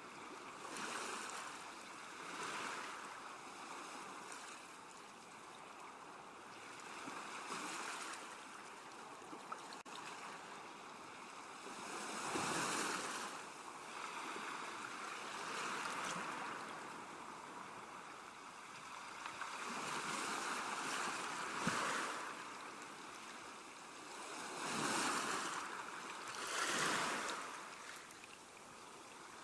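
Ocean surf, with waves washing in and drawing back, the rush swelling and fading every few seconds.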